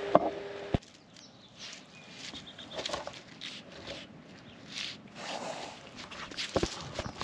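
A puppy moving about in a truck camper: scattered light footfalls, scratching and rustling. A steady hum stops with a sharp click under a second in.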